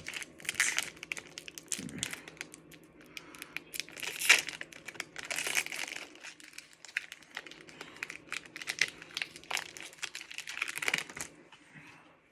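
Foil wrapper of a Pokémon booster pack crinkling and tearing as it is pulled open by hand, a busy run of crackles with the loudest rip about four seconds in.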